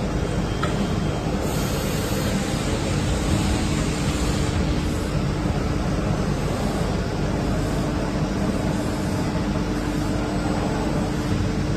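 CNC panel bender running: a steady machine hum with one constant low tone under a haze of noise.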